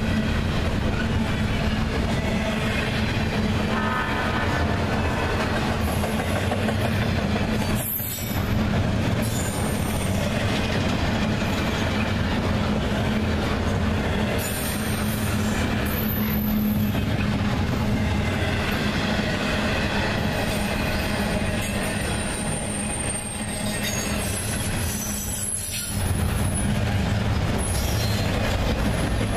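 Freight train rolling past at track level, its cars and wheels rumbling steadily, with high-pitched wheel squeals coming and going several times.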